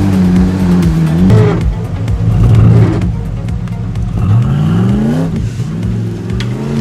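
Truck engine revving: its pitch sags, then climbs steeply about four seconds in before settling back to a steady drone.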